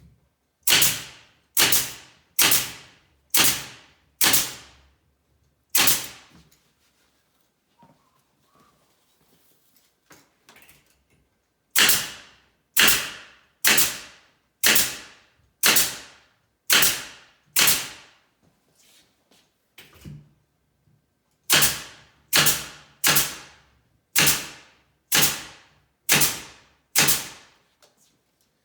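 Nail gun shooting fasteners through a cabinet back panel, one sharp crack per shot, spaced every few inches. The shots come in three runs: about five in quick succession, a lone shot, then runs of seven and eight at roughly one a second.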